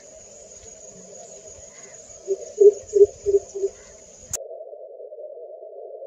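Southern coucal giving its deep booming call: a run of five low hoots, 'coop-coop-coop', over about a second and a half, loudest in the middle, over a steady faint high hiss. The sound cuts off abruptly with a click about four seconds in.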